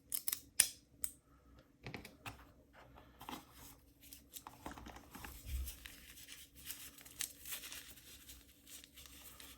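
Packaging being torn and crinkled as a wrapped item is unwrapped by hand, in a run of irregular crackles and rips.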